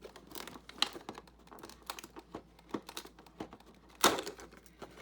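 Crinkling and clicking of packaging handled by hand as a toy advent calendar door is opened and the small toy taken out, with scattered light clicks and one louder snap about four seconds in.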